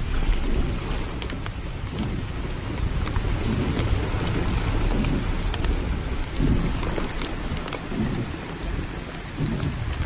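Rain falling steadily, with many separate drops ticking close by and a low rumble underneath.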